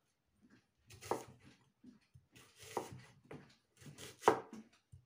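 Large chef's knife cutting a peeled onion on a wooden chopping board: slow, separate strokes, each ending in a knock of the blade on the wood, the loudest about a second in, near three seconds and near the end.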